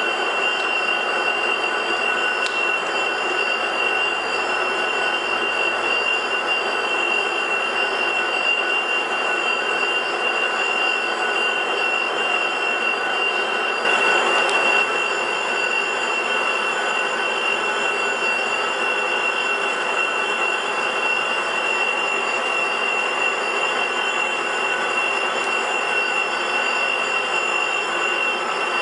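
Dainichi DM16 engine lathe running, its spindle and gearing giving a steady high-pitched whine over a continuous machine noise while the carriage travels along the bed. It gets briefly louder about halfway through.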